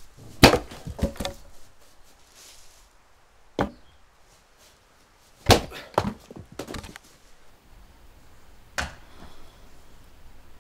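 Firewood being split with an axe on a chopping block: four sharp, hard chops a few seconds apart. The first and third strikes are each followed by a short run of lighter knocks.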